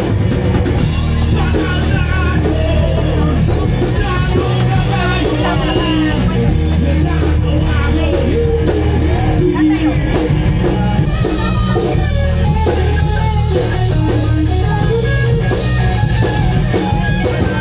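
Loud music with singing over a steady deep bass.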